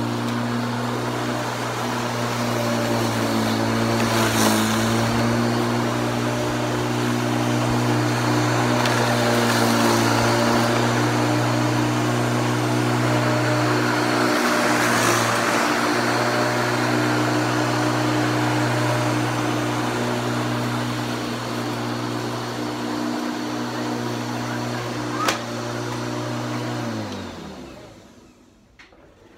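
Electric rotary lawnmower running with a steady hum as it cuts grass. Its motor winds down and stops near the end.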